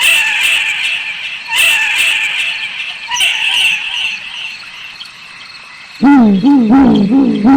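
Owl calls: three harsh, raspy screeches about a second and a half apart, then, about six seconds in, a low owl hoot that wavers rapidly up and down in pitch, about three times a second.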